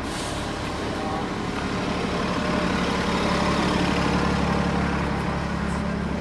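City street traffic with a heavy vehicle's engine running nearby: a steady low engine hum over road noise that swells a little in the middle and eases off again.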